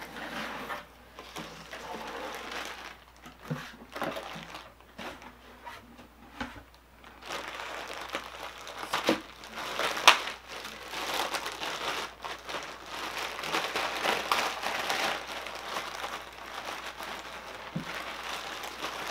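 Packaging being handled: a clear plastic bag and paper crinkling and rustling in irregular handfuls as a cap is unwrapped, sparse at first, then busier, with a sharp crackle about halfway through.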